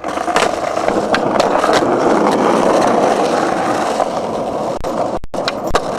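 Skateboard wheels rolling over rough concrete: a steady grinding rumble with scattered clicks and knocks, cutting out for an instant near the end.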